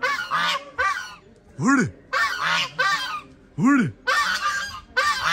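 Several white domestic geese honking over and over, loud calls coming about once a second.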